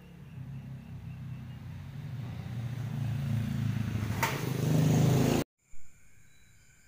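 A motor engine running and growing steadily louder for about five seconds, with one sharp click near its loudest, then cut off abruptly. After it, faint steady insect chirping.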